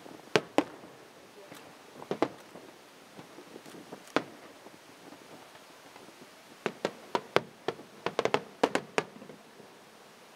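Fireworks display: sharp bangs of shells bursting. Two come close together near the start, single ones fall about two and four seconds in, and a quick run of bangs follows in the last few seconds.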